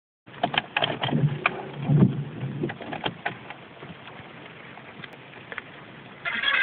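Scattered clicks and knocks with a few dull thumps in the first two seconds, then a faint steady background. Music from the car stereo comes in near the end.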